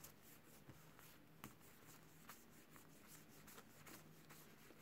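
Near silence, with a few faint rustles and small clicks of plastic sticker packets being handled.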